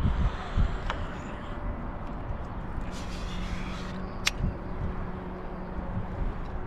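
Outdoor background noise with a faint steady low hum, broken by a few sharp clicks, the clearest a little past the middle.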